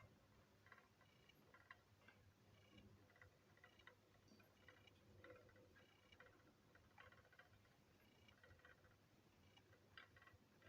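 Near silence with faint, irregular small clicks and light ticks that ring briefly.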